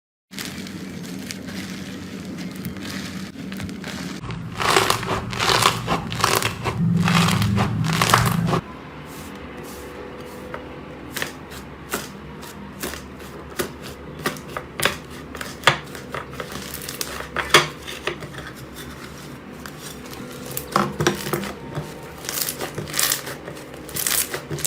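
Slime being played with, giving crackling clicks and pops: a dense run of crackles for a few seconds, then scattered pops.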